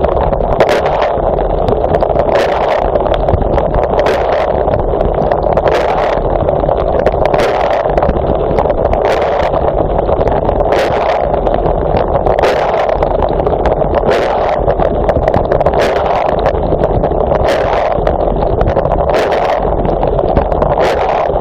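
Dishwasher wash cycle heard from inside the machine by a waterproof phone: a steady heavy rush of spraying water, with a sharper hiss of water striking about every second and a half to two seconds as the rotating spray arm sweeps past.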